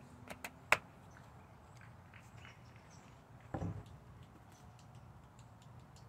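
Plastic sports-water bottle being handled: a few sharp clicks and crackles in the first second, and a short dull knock about three and a half seconds in.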